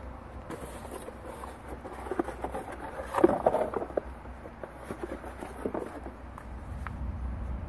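Plastic bags and paper packaging rustling and crinkling as contents are pulled out of a box, busiest about three seconds in, over a low steady rumble.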